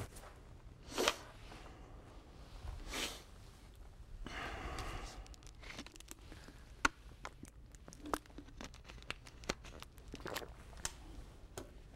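Faint rustling and handling noises, with several sharp clicks in the second half.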